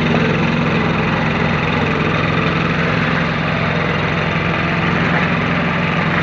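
Engine of a concrete kerb-stone making machine running steadily at an even speed.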